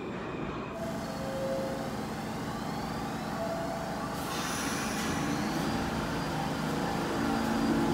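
New York City subway train rumbling into the station through the tunnel, growing louder. About four seconds in, a hiss of wheel-on-rail noise joins it.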